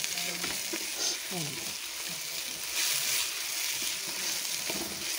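Onion, tomato and coriander-leaf masala sizzling in a nonstick pan as a wooden spatula stirs and scrapes through it, the masala being fried down until well browned.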